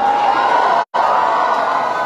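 Crowd cheering and chattering, broken by a brief complete dropout just under a second in.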